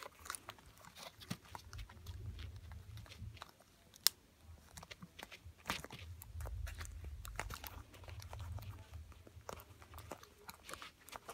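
Hands handling a headphone ear cup with its newly fitted ear pad, making scattered small clicks and crinkly rubbing of plastic and cushion. One sharp click comes about four seconds in.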